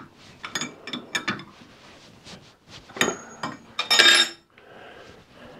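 Steel hook spanner clicking and clinking against a lathe collet-chuck nut as the collet is tightened on the bar stock. About four seconds in there is a louder, ringing metallic clatter as the spanner comes off.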